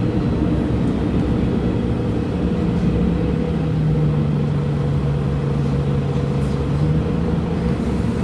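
A city bus under way, heard from inside: a steady engine drone and road rumble. A low hum holds one pitch and fades out about seven seconds in.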